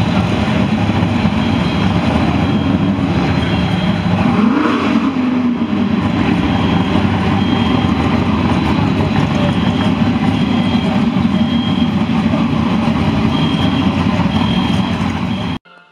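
A fire engine's diesel engine running loudly at close range, with a brief rise and fall in pitch about four to five seconds in. Faint short high beeps repeat at even spacing over it.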